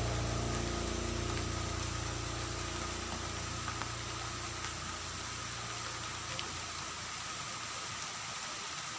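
Steady rain: an even hiss with a few faint drop taps, over a low rumble that fades out toward the end.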